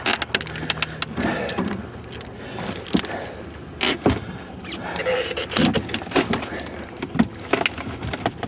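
Irregular knocks and clunks from a big salmon being pushed into a cooler that is too small for it, over the steady hum of a motor.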